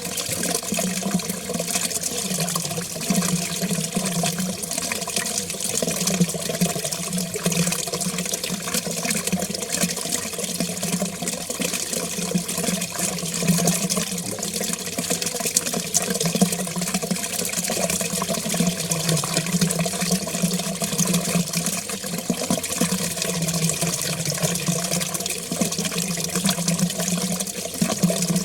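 Water running steadily down a drain: a continuous rushing with a low, wavering rumble under it.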